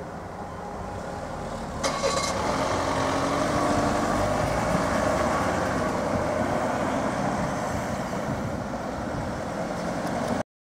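Road traffic moving off across a level crossing as the barriers lift: car engines and tyre noise rise about two seconds in and carry on steadily, then the sound cuts off abruptly near the end.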